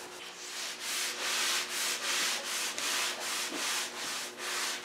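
A folded cloth pad rubbed in rhythmic strokes, about three every two seconds, over a mahogany table top while padding on a coat of tung oil varnish.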